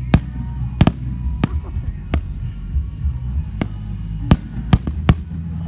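Aerial firework shells bursting: an irregular string of about eight sharp bangs. The loudest come near the start and in a quick cluster over the last second and a half. A steady low hum runs underneath.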